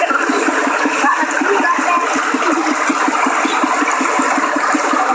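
Floodwater rushing and splashing steadily, a dense, churning flow of fast-moving water.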